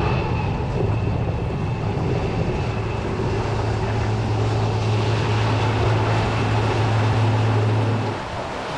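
Electric DC boat motor driving its right-turning propeller forward at high power, the direction the motor runs most efficiently in. A steady low hum sounds over rushing water and wind noise, and the hum cuts off about eight seconds in as the throttle is backed off.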